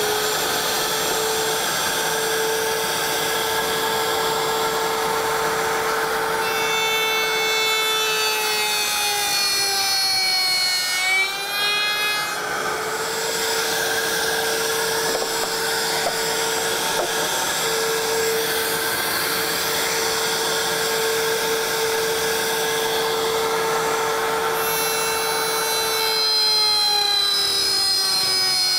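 Router table motor running with a dovetail bit, a steady high whine, while a wooden box is passed over the bit to cut dovetail key slots across its corners. Its pitch sags twice, about ten seconds in and near the end, as the bit bites into the wood.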